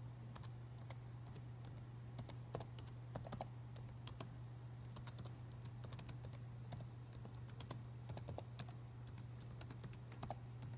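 Typing on a laptop keyboard: soft, irregular key clicks, several a second, in short runs.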